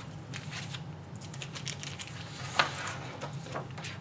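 Paper rustling and light handling noises as an instruction sheet is moved about, with small scattered clicks and one sharper tap a little past halfway. A low steady hum runs underneath.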